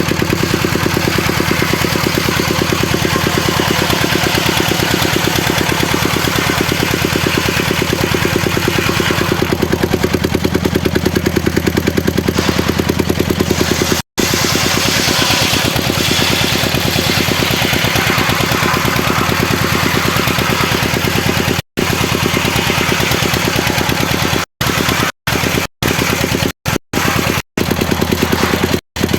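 The engine of a homemade circular sawmill runs steadily with a fast, even pulse. The sound cuts out abruptly for an instant a few times, mostly in the last five seconds.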